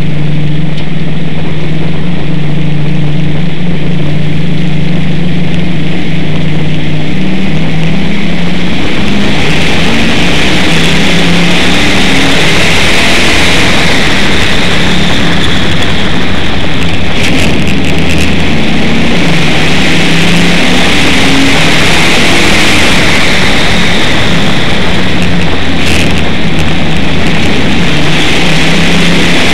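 Race car engine heard from an onboard camera at racing speed, very loud and overloaded, its note stepping up and down with the throttle through the laps, with a harsher rushing noise from about eight seconds in.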